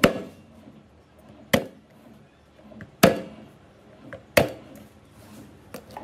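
Shallots crushed one at a time with the flat of a knife on a wooden chopping board, the blade struck by a fist: four sharp thuds about a second and a half apart, then a lighter knock near the end.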